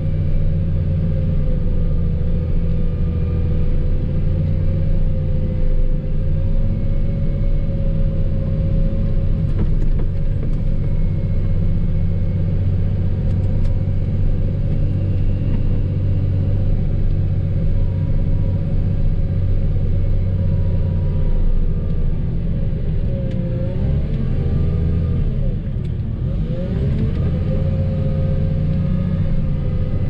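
Snowplow vehicle's engine running steadily under way, a constant low drone with a whine above it. Near the end the whine dips and rises in pitch a few times.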